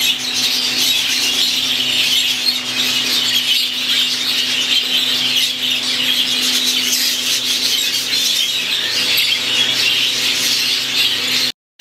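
A roomful of budgerigars chattering and warbling without a break, with a steady low hum underneath; the sound cuts out for a moment near the end.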